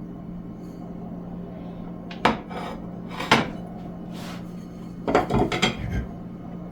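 Dishes and cutlery clattering as food is served onto a plate: two sharp knocks a couple of seconds in, then a quick run of clinks and knocks near the end, over a steady low hum.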